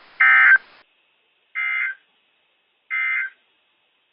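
NOAA Weather Radio end-of-message code: three short bursts of digital data tones (the SAME "NNNN" code), about 1.3 seconds apart, the first louder than the other two. They mark the end of the broadcast message. A faint radio hiss under the first burst then stops.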